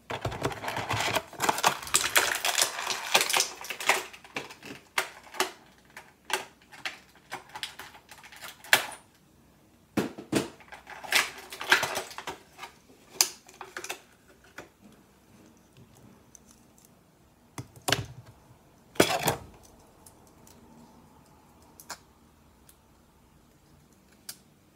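Toy packaging being torn open and handled: a few seconds of steady crinkling and rustling, then scattered clicks and crackles of hard plastic. Two louder clacks come about three-quarters of the way through, as Bakugan figures are freed from the box.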